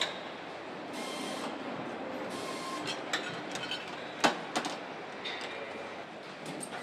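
Car assembly plant floor noise: a steady din of machinery with a few short hisses and several sharp knocks, the loudest a little past the middle.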